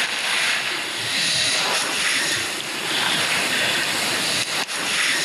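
Wind rushing steadily over the microphone, a loud even roar with a single short click near the end.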